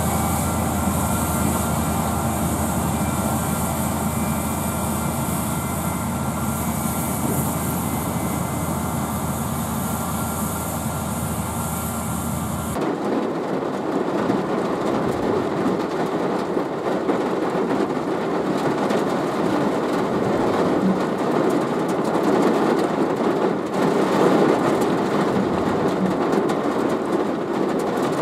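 Self-propelled pea viner harvesters running with a steady mechanical drone. About halfway through it cuts abruptly to heavy rain on the glass and roof of a vehicle, heard from inside, with the machines still running beyond.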